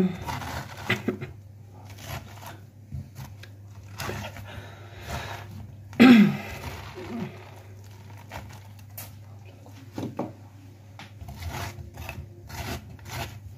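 A metal spoon scrapes the seeds and stringy fibres out of a halved raw pumpkin, giving irregular soft scrapes and rubs. One louder sound comes about six seconds in.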